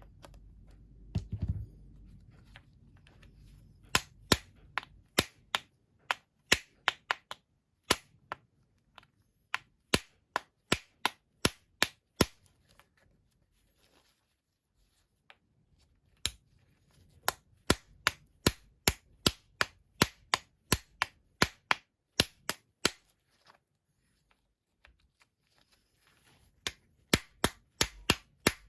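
Sharp tapping knocks in uneven runs of two or three a second, with short pauses between: a new bearing being tapped into an LG dryer's drum-support roller. There is a low thud about a second in.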